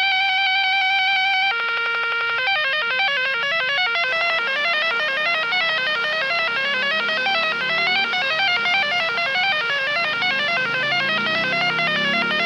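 EAS-style emergency alarm sound. It opens with a steady electronic tone for about a second and a half, then a brief fast-pulsing tone. A rapid run of bright notes stepping up and down follows, and a lower line joins in about seven seconds in.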